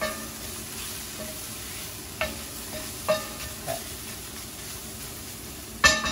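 Mushrooms and leeks sizzling in a hot enameled cast-iron pan as a spatula stirs and scrapes them, with a few short scrapes along the pan. A quick run of louder knocks comes near the end.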